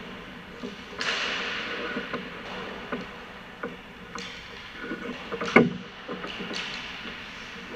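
Ice hockey practice: skate blades scraping the ice, sticks tapping pucks, and one loud, sharp puck impact about five and a half seconds in, ringing briefly in the rink.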